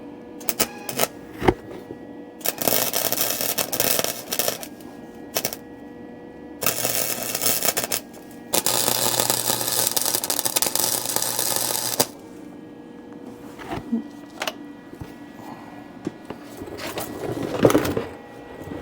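Welding on a car's floor-pan seams: three bursts of arc noise, the last and longest lasting about three seconds, with a few sharp clicks and knocks in the gaps between.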